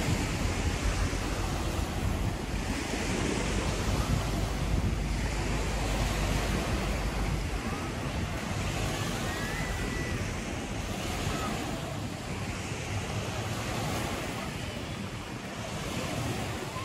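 Small sea waves washing onto a pebble beach, the wash swelling and fading every two to three seconds. Wind rumbles on the microphone, most strongly in the first half.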